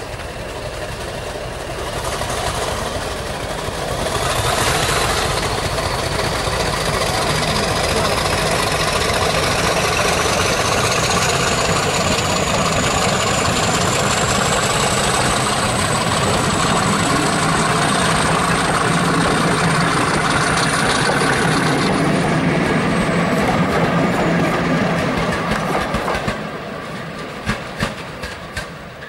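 Class 50 diesel locomotive 50 007 accelerating away with its train, its English Electric V16 diesel working hard under power and a whine rising steadily in pitch over about twenty seconds. Near the end the sound fades as it draws away, and the coach wheels click over the rail joints.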